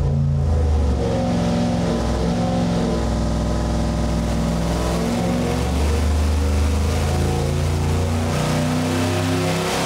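Cam-swapped GM LQ9 6.0-litre V8, fitted with a carburetor and long-tube headers, running on an engine dynamometer during a comparison power pull. The pitch shifts up and down in steps.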